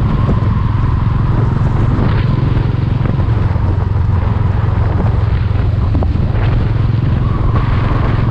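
A motorcycle engine running steadily while the bike cruises on the open road, heard from the bike itself, with wind rushing over the microphone.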